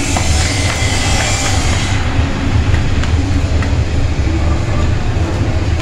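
Steady low rumble, with light pats as roti dough is slapped flat between the palms; a high hiss above it stops about two seconds in.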